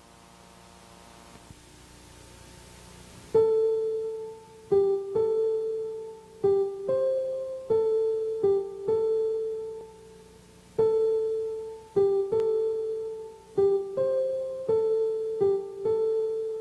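Slow, sparse melody of single notes on a piano-like keyboard, each note struck and left to ring away, starting about three seconds in after a faint hiss.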